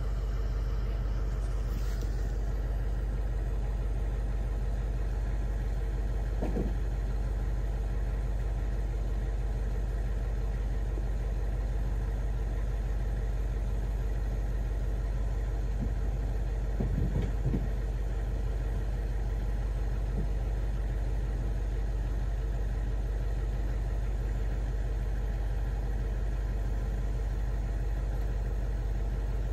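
Steady low engine-like drone, like a motor idling, holding one level throughout, with a few faint soft knocks about 7 and 17 seconds in.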